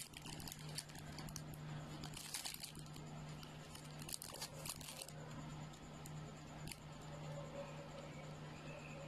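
Clear plastic wrapping on a TV-box remote control crinkling as the remote is handled, in bursts for about the first five seconds and then only now and then. A steady low hum runs underneath.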